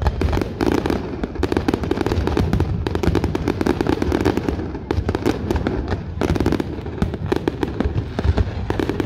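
Fireworks display: a dense, rapid run of bangs and crackles with hardly a break.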